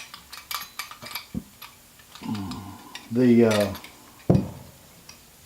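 Small steel parts and a hand tool clinking and clicking against each other while the selector fork assembly's nut is worked on, with a sharp metallic click about four seconds in. A short vocal sound from the worker in the middle is the loudest moment.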